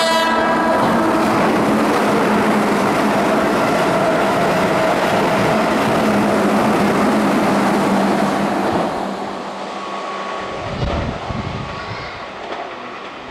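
Keihan 6000-series electric train running through the station at speed without stopping: a loud, steady rush of wheels on rail for about nine seconds, then fading as the last cars pull away, with a few low thumps near the end. The tail of its horn cuts off right at the start.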